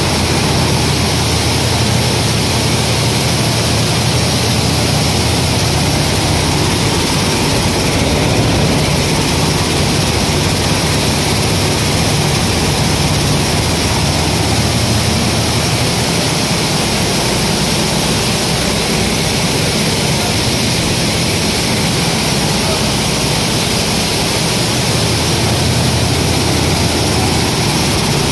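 Automatic grain-cleaning machine (grader with destoner) running: a loud, steady mechanical hiss over a low hum as grain flows through it.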